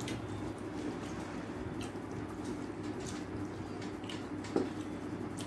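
Soft, wet eating sounds of rice and dal being mixed and squished by hand on a steel plate, with a few short clicks and one slightly louder tap about four and a half seconds in, over a steady low hum.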